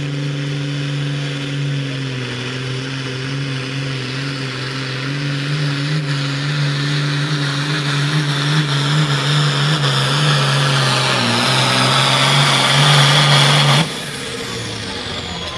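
Diesel engine of a modified International Harvester hot farm pulling tractor running at full throttle under heavy load while dragging a weight-transfer sled. It grows louder through the pull and cuts off suddenly near the end, leaving a quieter engine sound.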